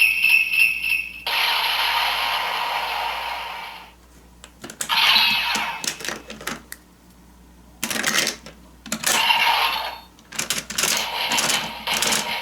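Plastic toy Geartlinger clicking as its gear is spun by hand, in several bursts of rapid ratcheting clicks. An electronic toy sound effect plays first and cuts off about four seconds in.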